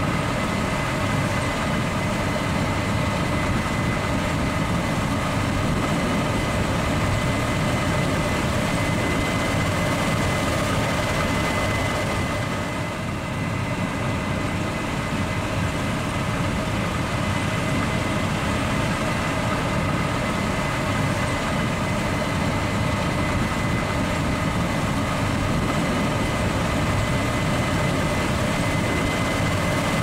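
Case IH 9250 combine harvester running steadily at harvest, its diesel engine rumbling under a steady high-pitched whine from the machinery.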